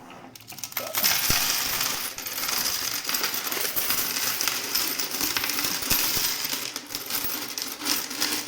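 A heap of euro coins clinking and clattering continuously as they are stirred through and sorted by hand, starting about a second in.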